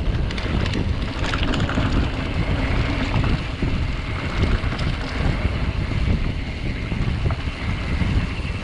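Wind buffeting the microphone of a handlebar-mounted action camera on a full-suspension mountain bike riding fast down a dry dirt singletrack, with the tyres rumbling over the dirt. A few sharp rattles from the bike over bumps come in the first couple of seconds.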